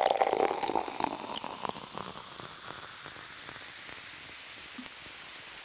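Thick tomato passata pouring from a glass bottle into a glass measuring jug, spattering and plopping. The sound is loudest at first and dies away over about two seconds, leaving only a faint steady hiss.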